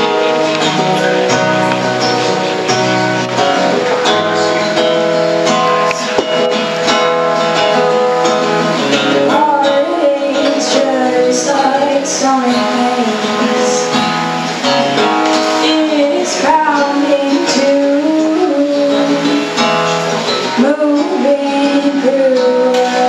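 Live acoustic performance: acoustic guitars playing with a woman singing, the voice gliding between notes more clearly from about halfway through.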